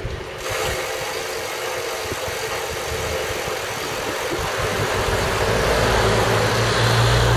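Car engine running with road noise. About five seconds in, a low engine hum comes up and grows louder to the end as a car draws close.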